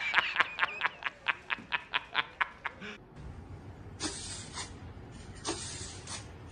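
A man's rapid, staccato 'ha-ha-ha' belly laugh, the J. Jonah Jameson laugh meme, about five bursts a second and slowing over about three seconds. After it, two brief hissy rushes of noise about four and five and a half seconds in.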